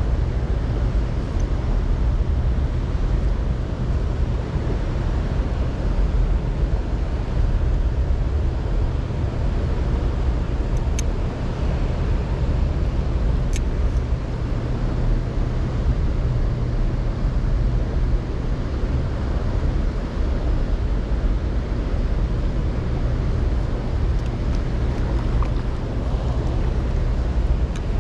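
Water lapping around a kayak hull over a steady low rumble, with two faint clicks near the middle.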